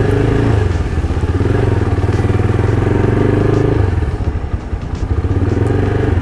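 Small motorcycle engine running as the Z200 is ridden. It drops in pitch and level about four seconds in as the bike slows, then picks up again near the end.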